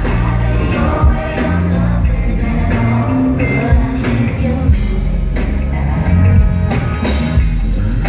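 Live band performance over a concert sound system: a woman sings lead into a microphone over heavy bass and drums.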